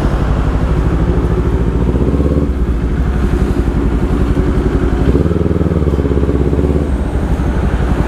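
Big-bike motorcycle engine running at steady low revs while being ridden; its sound eases off about two and a half seconds in and comes back stronger around five seconds.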